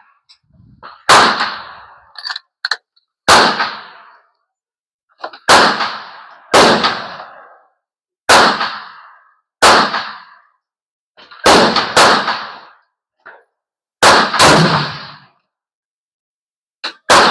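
Rifle shots on a shooting range, about ten loud cracks one to two seconds apart, each with a short echoing tail, and twice two shots come about half a second apart.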